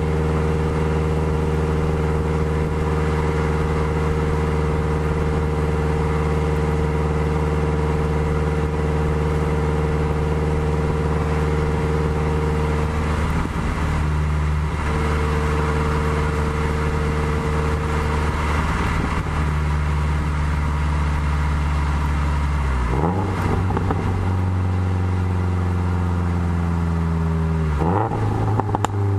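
Exhaust note of a 2013 Subaru WRX's turbocharged flat-four, heard right at the tailpipes through a Maddad turboback exhaust with equal-length headers, as the car is driven. The note holds steady for about the first half, then dips and changes pitch a few times, as at gear changes, and falls in pitch near the end.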